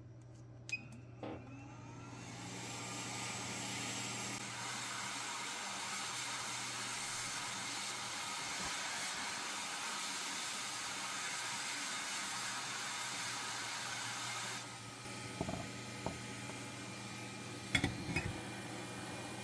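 Hot air rework station blowing a steady stream of air while desoldering a suspected shorted ceramic capacitor from a laptop motherboard. The air builds up over a couple of seconds and cuts off suddenly about 15 seconds in, followed by a few light clicks.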